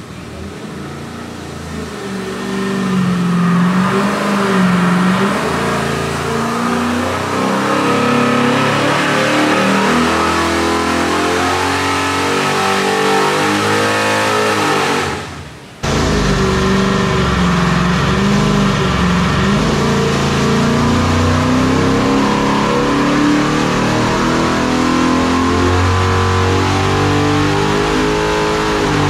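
A 540 cubic-inch big-block Chevrolet V8 running hard under load on an engine dyno during a full-throttle pull, its level building over the first few seconds. About halfway through the sound drops out briefly, then comes back abruptly with more low rumble.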